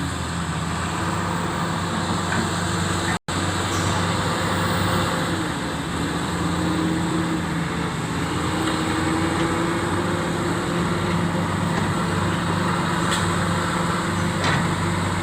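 Komatsu PC400 excavator's diesel engine running steadily under working load, with a hydraulic whine that dips and rises in pitch as the machine works. The sound cuts out for an instant about three seconds in.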